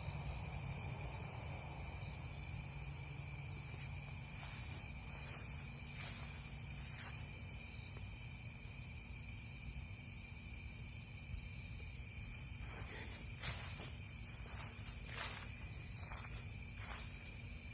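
Steady chorus of crickets and other night insects, several trilling pitches held throughout, over a low rumble. A few short taps come in the second half.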